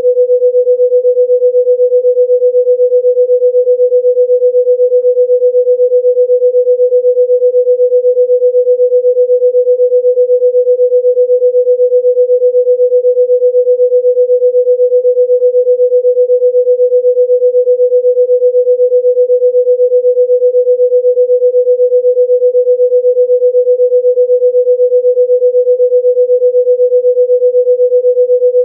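A single pure electronic tone held at one unwavering mid pitch, played as a healing-sound tone.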